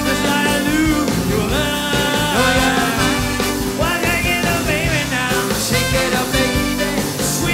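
A swing band playing, with a melody line moving between notes over a steady, full rhythm section.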